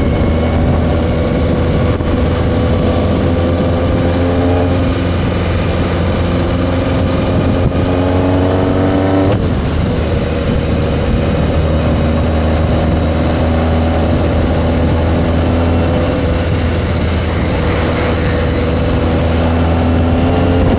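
Yamaha XS1100's four-cylinder engine running under way, with low wind rumble on the microphone; its pitch climbs as the bike accelerates, drops sharply about nine seconds in, then climbs again near the end. The owner says this engine misses at steady speed and runs fine with more throttle.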